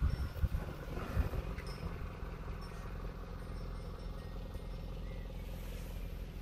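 Nissan March's four-cylinder engine idling steadily, with a few knocks in the first second or so.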